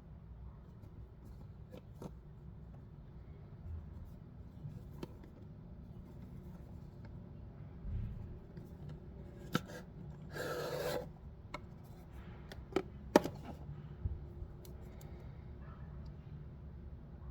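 Packaging of a die-cast toy car being handled and opened: scattered sharp clicks and taps of plastic and card, with a brief scraping cut or tear about ten seconds in, over a low steady hum.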